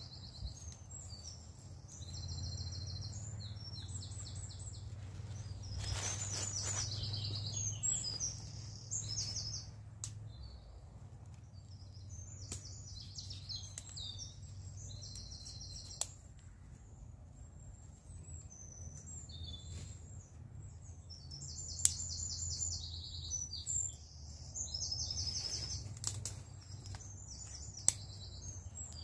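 Songbirds singing, with repeated high, rapid trilled phrases, over a low steady rumble. A few sharp clicks stand out, the loudest about two-thirds of the way through and again near the end.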